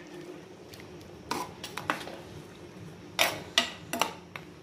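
Steel ladle stirring a thick fish curry in a clay pot, knocking and scraping against the pot several times in two short clusters.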